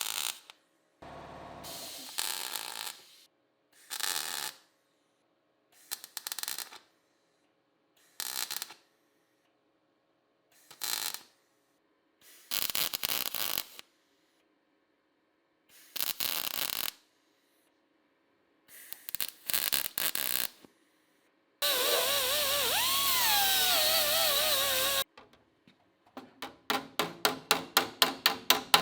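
A series of short MIG welding bursts, each a second or so, with silence between them. Near the end comes a wavering pitched sound for about three seconds, then rapid, even tapping at about five strikes a second, growing louder.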